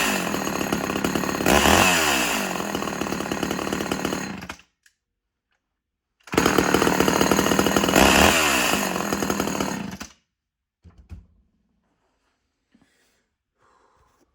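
Chainsaw engine running and revving up and down, in two stretches of about four seconds each that cut off suddenly, with silence between them; after the second, near silence with a few faint knocks.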